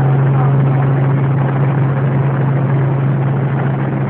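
Helicopter running steadily: a loud, unbroken low hum with a dense rushing noise above it.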